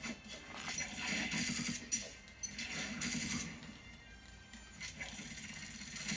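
Faint handling noise with a few small clicks: a gutted lock cylinder's pins and parts being moved about by hand.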